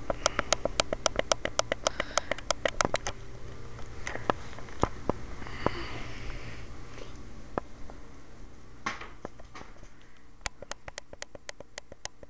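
A quick run of sharp clicks and taps, about six a second for the first three seconds, then scattered, with another quick run near the end. Two soft hissy puffs come in the middle, over a steady low hum.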